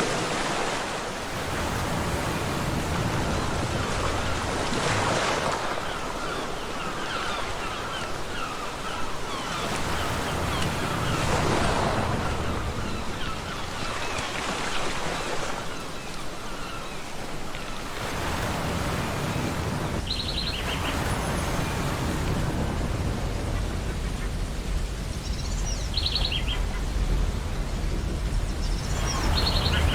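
Ocean surf breaking and washing up a beach, a steady rush that swells with each wave, over a low rumble. A few short seagull calls come in over the surf in the second half.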